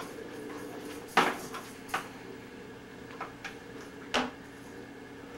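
Kitchen clatter from preparing a meal: several sharp knocks and clicks of cupboard doors and dishes, the loudest about a second in and smaller ones over the next few seconds.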